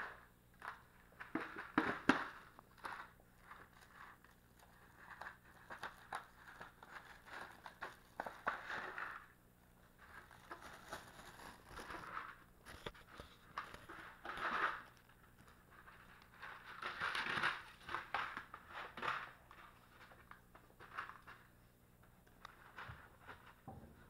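Puppies playing with toys and a blanket on a rug and wooden floor: faint, irregular rustling, scraping and clicking from paws, claws and toys being tugged and chewed, in short scattered bursts.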